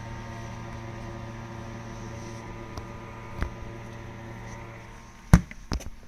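Hoshizaki RFT-150SNF-E under-counter freezer-refrigerator running, a steady hum from its cooling unit and fan, cooling normally. About five seconds in a loud thud and a second knock come as the door is shut, and the hum drops away.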